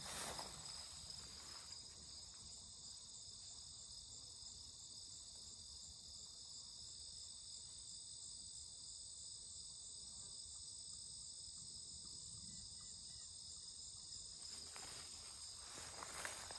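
Steady, high chorus of crickets in a late-summer meadow, several trills at different pitches layered together. Footsteps on the grassy path sound at the start and again near the end.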